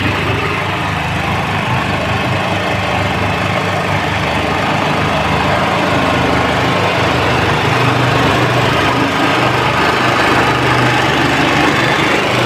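Mini road roller's engine running steadily with a fast, even shudder while compacting the earth fill of a floor.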